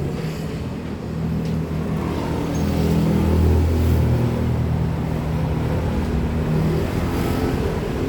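Road traffic: motor vehicle engines running and passing close by, with their pitch rising and falling.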